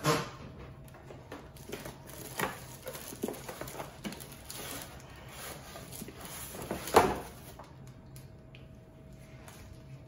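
Unboxing handling noise: cardboard box flaps and the plastic wrapping around a coffee machine rustling as the machine is worked out of the box, with a few knocks, the loudest about seven seconds in.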